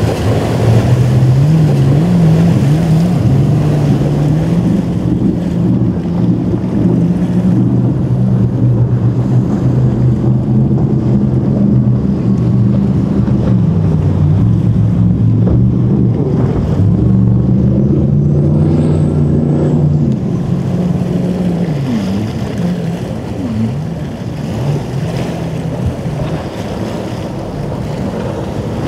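Motorboat engine running, its pitch rising and falling as the throttle changes, then fading after about twenty seconds into a rumble of water and wind.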